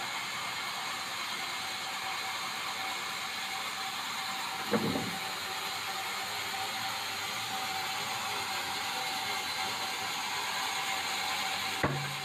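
Sawmill band saw running with a steady whine while it rips a board off a red meranti beam. Two sharp knocks cut through, about five seconds in and again near the end.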